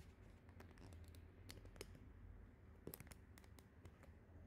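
Near silence over a low steady hum, broken by scattered faint clicks and light taps, with a small cluster about three seconds in.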